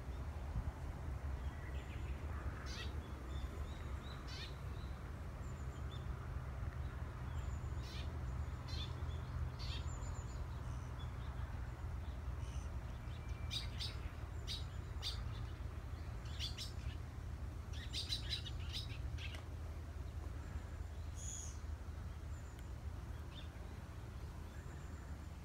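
Wild birds calling in the riverside trees: short, high chirps scattered throughout, thickest a little past the middle, over a steady low rumble.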